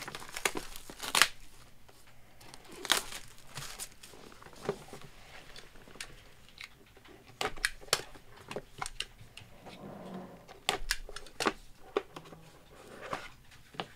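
Hands handling and opening a small sealed cardboard box: a seal sticker peeled and torn, with scattered sharp taps and clicks of the box and lid and cardboard rustling between them.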